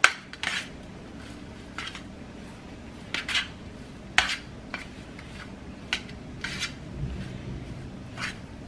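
Chopsticks clicking and scraping against a hammered metal tray while grated cassava is tossed with salt. The clicks are sharp and irregular, roughly one a second.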